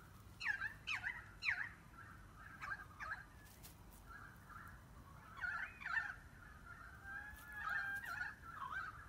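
A series of short, high animal calls: three quick downward-sweeping cries in the first second and a half, then scattered chirps and a held whistle-like note near the end.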